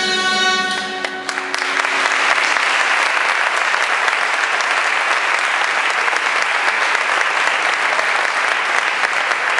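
A dulzaina ensemble (Castilian double-reed shawms) holds its final chord, which cuts off about a second in. Steady audience applause follows.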